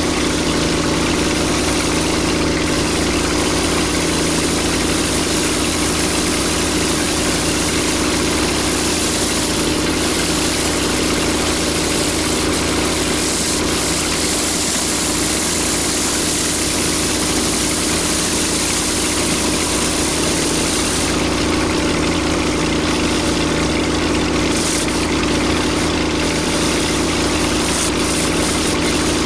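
A pressure washer's engine runs steadily while a rotary surface cleaner sprays across a concrete driveway, a constant engine drone under a dense hiss of spray.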